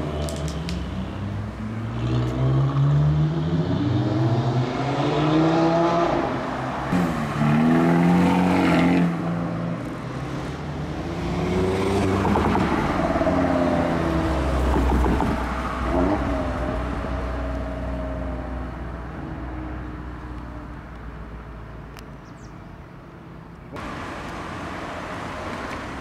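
Audi RS3 Sportback 8V's turbocharged 2.5-litre five-cylinder accelerating hard away through the gears, its pitch climbing and dropping at each upshift, over several passes. The exhaust is a loud aftermarket sport system.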